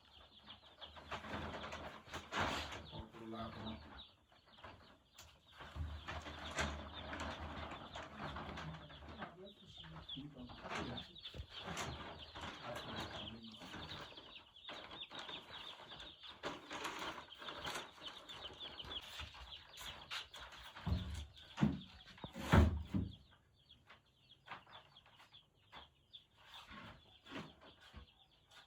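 A crowd of day-old broiler chicks peeping continuously in a high, dense chatter, with rustling and handling bumps. A loud knock comes about 22 seconds in, after which the peeping is fainter.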